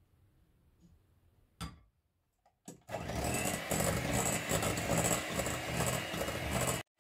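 After a short knock and a click, an electric hand mixer starts about three seconds in and runs steadily with a faint motor whine, its beaters whisking runny cake batter in a glass bowl. It stops abruptly just before the end.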